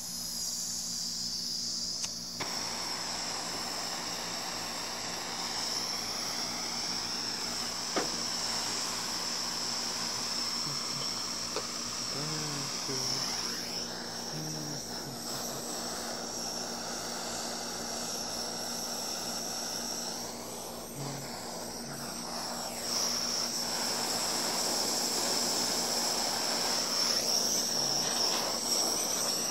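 Gas blow torch flame burning with a steady hiss, getting a little louder in the last few seconds.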